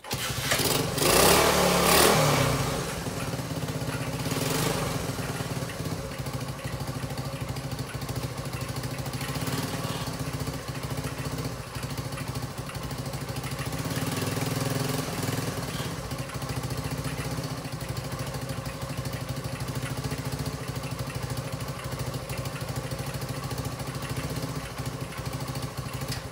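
1968 Honda CL90's small single-cylinder four-stroke engine kick-started, catching on the first kick and revving for a couple of seconds, revving again briefly about four seconds in, then settling into a steady idle under its own power. It runs now that the points arm's missing insulating nylon washer, which let the points wire ground out, has been replaced.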